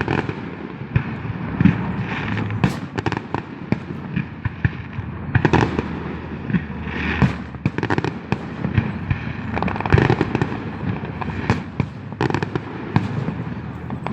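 Fireworks and firecrackers going off one after another: many sharp bangs and cracks at irregular intervals, overlapping over a constant crackle.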